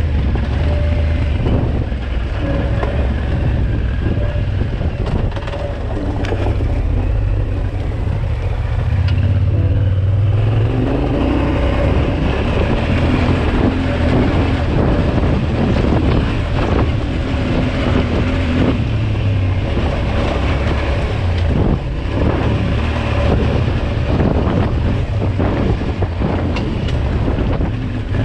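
Yamaha Ténéré 700's parallel-twin engine running under way on a ride, with wind buffeting the microphone and frequent short knocks throughout.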